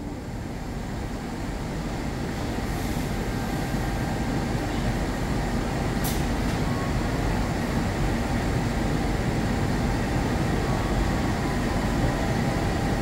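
CC 206 diesel-electric locomotive running with a steady low rumble that slowly grows louder.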